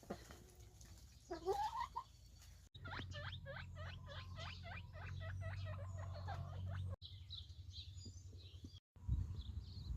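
Animal calls in several short cut-together clips: a loud rising squeal about a second and a half in, then a run of quick repeated calls for about four seconds, then high chirping.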